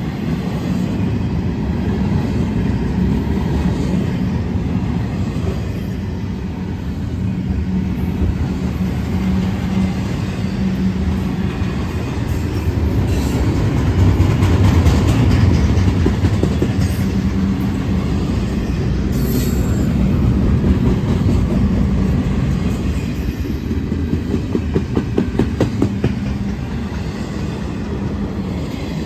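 Double-stack intermodal train's well cars rolling past: a steady, loud rumble of steel wheels on rail with a low hum, and a quick run of wheel clicks over rail joints near the end.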